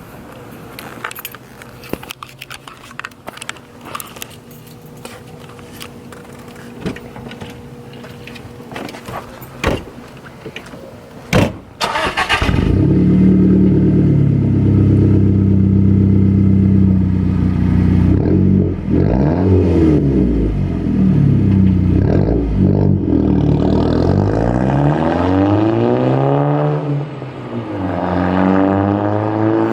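Scattered light clicks and knocks, then about twelve seconds in the B7 Audi A4's turbocharged 2.0-litre four-cylinder cold-starts through a 3-inch straight-piped exhaust with no muffler. It settles into a loud, steady idle and from about halfway through is blipped several times, the note rising and falling with each rev.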